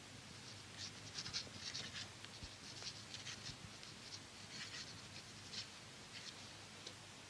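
A pen scratching on paper in short, irregular strokes as a line of text is written by hand.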